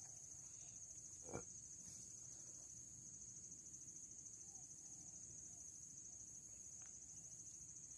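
Faint, steady high-pitched trilling of insects, a cricket-like chirring that never stops. A single soft knock sounds about a second and a half in.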